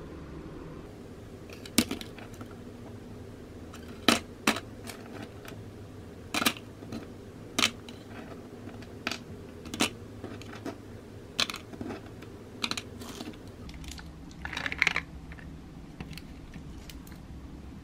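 Miniature plastic vegetables being dropped one by one into a small cardboard box: a dozen or so light clicks and taps, with a short rattling cluster about three-quarters of the way through, over a low steady hum.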